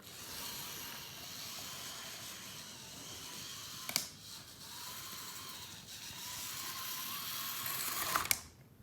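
Model train locomotive running along the track: a steady whirring hiss from its small electric motor and wheels, with a sharp click about four seconds in and another near the end.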